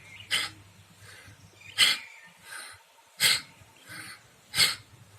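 Bhastrika pranayama (bellows breath): forceful, rhythmic breaths through the nose. A loud breath comes about every second and a half, with a softer one between.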